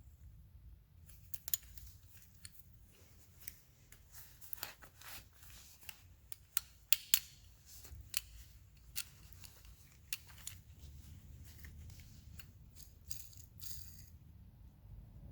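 Irregular clicks and clinks of small metal parts and hand tools being handled during work on a Stihl 180 chainsaw, over a low steady hum; a few sharper clinks stand out, the loudest about seven seconds in.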